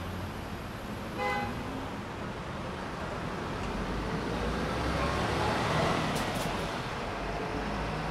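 Steady city street traffic noise, with a short car horn toot about a second in and the traffic swelling louder around six seconds in.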